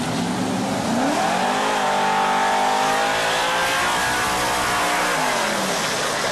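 Vehicle engine accelerating hard: its pitch climbs about a second in, holds high, then falls away near the end.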